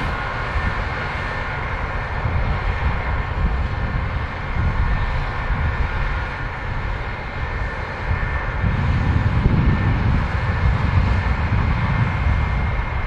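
Combine harvester running while harvesting: a steady low engine and machinery drone with faint whining tones above it, swelling slightly about nine seconds in.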